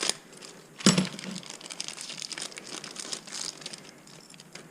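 Hands handling plastic parts and small tie-down hardware: crinkling and light clicks, with one sharp knock about a second in.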